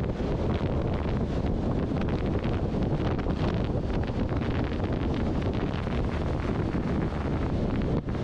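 Wind buffeting the microphone of a camera on a motorcycle riding along the road: a steady rush, with a short dip about eight seconds in.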